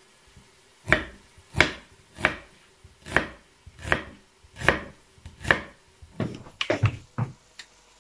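Food being chopped on a heavy solid-wood chopping board: seven even strokes, about one every 0.7 seconds, then a quicker run of lighter knocks near the end.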